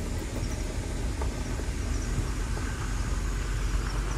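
Steady rumble of a Maruti Suzuki Jimny on the move, engine and road noise heard from inside the cabin.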